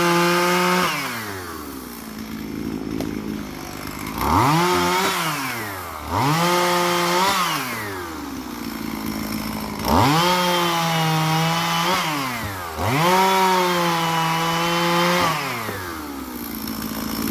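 Two-stroke chainsaw cutting wood, throttled up in repeated bursts. The engine climbs to a high, steady pitch for one to three seconds, sags a little under the cut, then drops back to idle between bursts. There are about five bursts, two of them short and the rest longer.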